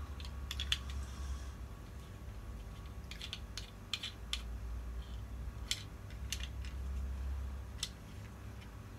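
Small plastic and metal parts of a ring light's phone holder clicking and knocking as they are fitted together by hand: scattered, irregular clicks.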